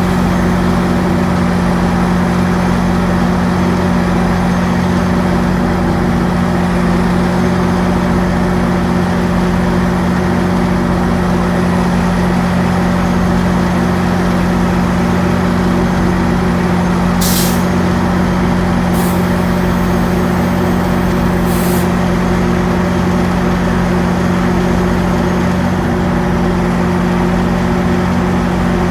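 GO Transit diesel locomotive idling with a steady, loud hum, with three short hisses of air from the brakes a bit past the middle.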